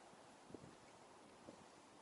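Near silence: faint outdoor background with two soft low bumps about a second apart.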